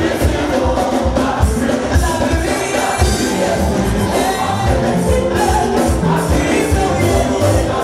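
Gospel praise music: a choir singing over a steady drum beat.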